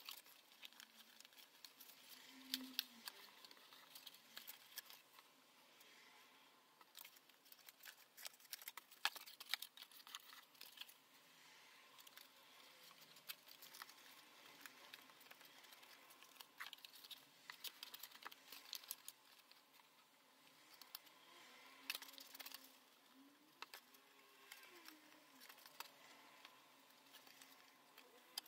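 Faint rustling, crinkling and small clicks of copy-paper papercraft parts being handled and pressed into shape by hand.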